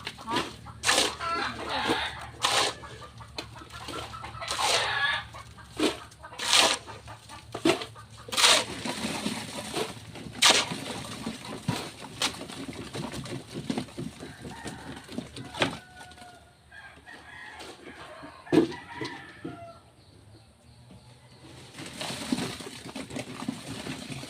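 A rooster crowing and chickens clucking, mixed with irregular sharp knocks and clatter.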